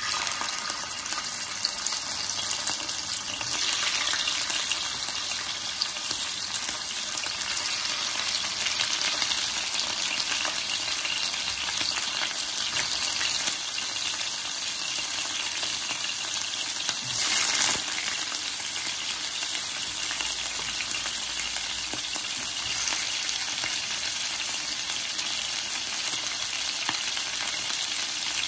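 Raw chicken pieces sizzling in hot oil in a nonstick frying pan as they are browned for brown stew chicken: a steady frying hiss with a brief louder surge about two-thirds of the way in.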